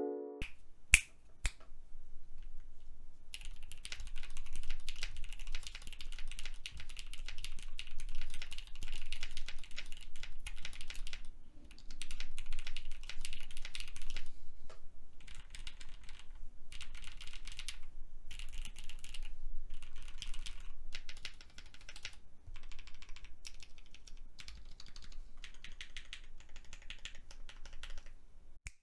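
Typing on a mechanical keyboard fitted with mint switches, which have 68-gram springs and teal polycarbonate housings. A couple of single keystrokes come first, then fast continuous typing in bursts broken by short pauses.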